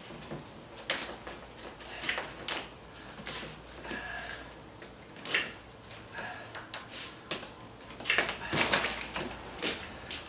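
Packing material being cut up and handled on top of a cardboard box: irregular clicks, snaps and crackles with a couple of faint short squeaks, coming thicker about eight seconds in.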